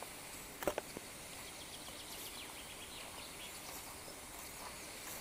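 Rainforest ambience: a steady faint high hiss with scattered faint short chirps, and two or three sharp clicks just under a second in.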